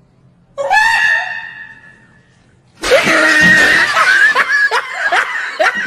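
A man laughing hysterically in high-pitched shrieks: one long shrill shriek that fades out, then from about three seconds in a loud, continuous fit of laughter broken by short rising squeals.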